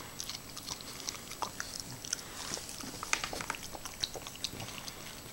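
A French bulldog licking and smacking her lips as she works Vegemite off a finger: wet, irregular mouth clicks, several a second.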